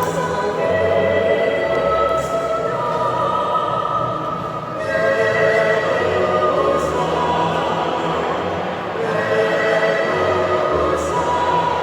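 Choir singing long sustained chords in phrases a few seconds long, with short breaks between phrases.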